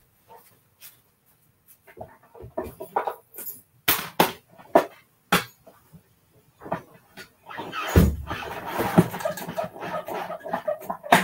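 Clicks and knocks of embossing plates and a folder being handled, then, about 8 seconds in, about three seconds of continuous rumbling as a hand-cranked die-cutting and embossing machine presses a card front through an embossing folder.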